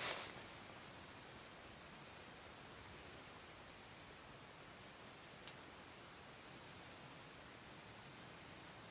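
Insects trilling steadily in two high pitches, with one faint click a little past halfway through.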